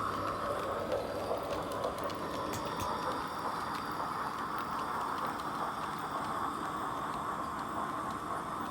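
HO-gauge model train running on the track: a steady rush of steam-locomotive sound from a sound box played through a small speaker in a wagon, over light clicking and rattling of the wheels on the rails.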